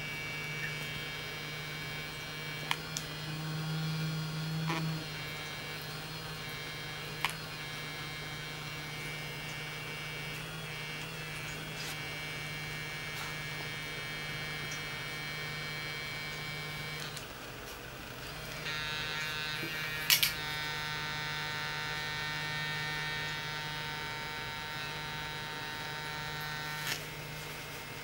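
Electric toothbrush buzzing steadily as a low hum. The buzz sags and falters about seventeen seconds in, then picks up again. A few sharp clicks sound over it, the loudest about twenty seconds in.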